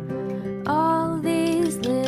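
Background music: a soft song with acoustic guitar, a voice singing long held notes that slide up into pitch.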